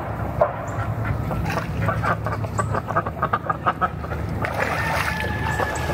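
Pekin ducks quacking: scattered quacks, then a quick run of about a dozen short quacks in the middle.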